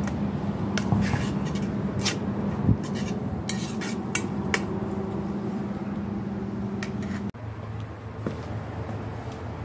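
A metal utensil clinking and scraping against a frying pan set over a charcoal brazier as food is stirred, with a dozen or so sharp clinks. It stops abruptly about seven seconds in.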